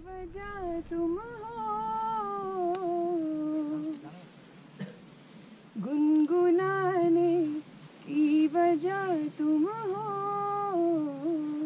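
A woman's voice singing a slow, unaccompanied melody in long held notes, in two phrases with a short break a little past the middle.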